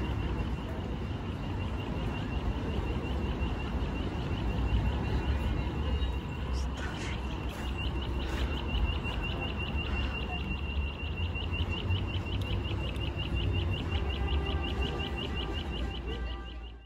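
City street ambience: a steady low traffic rumble with the bustle of passers-by, joined about halfway through by a rapid, evenly repeated high chirping that keeps going.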